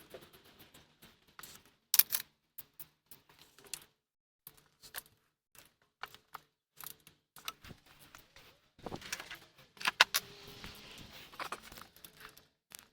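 Metal hand tools and parts clinking and knocking irregularly as a starter motor is fitted and bolted into the engine bay, with two sharp clacks, one about two seconds in and one near ten seconds.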